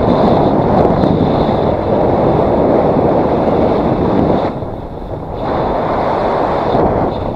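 Loud, steady wind noise as the airflow of paraglider flight hits a GoPro action camera's microphone, easing briefly a little past halfway before it picks up again.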